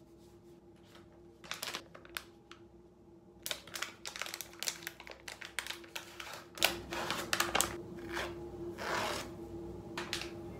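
A small single-use skincare sachet is torn open and handled, its wrapper crinkling and rustling in the fingers in short irregular bursts. The bursts start sparse and grow busier and louder in the second half, over a steady faint hum.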